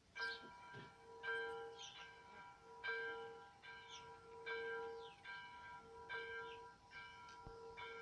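Church bells ringing, a new strike roughly every second with the ringing of each overlapping the next, starting suddenly.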